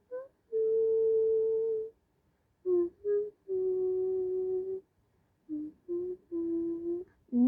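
A voice humming a short tune: three phrases, each two quick notes followed by a long held note, every phrase pitched a little lower than the one before.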